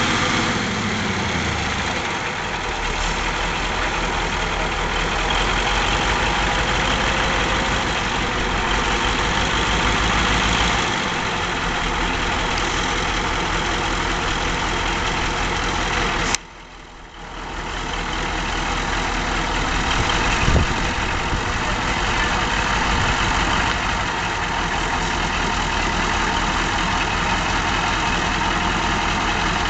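Large Trojan wheel loader's diesel engine idling steadily, its note dropping in the first two seconds. About halfway through, the sound cuts out almost completely for a second or so, then fades back in.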